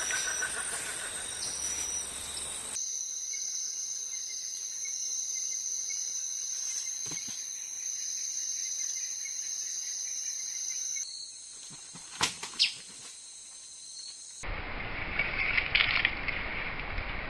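Outdoor nature ambience of steady, high-pitched insect trilling, with the background changing abruptly several times. Two sharp clicks come a little past the middle, and a noisier rustling stretch follows near the end.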